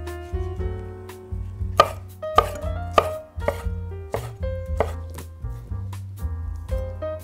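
Chef's knife dicing tomato on a bamboo cutting board: a series of sharp knocks as the blade strikes the wood, the loudest about two to three seconds in. Background music plays underneath.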